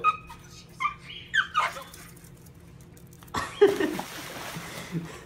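A dog whines a few times, then about three and a half seconds in a small dog jumps into a swimming pool with a loud splash, followed by a second or so of churning water.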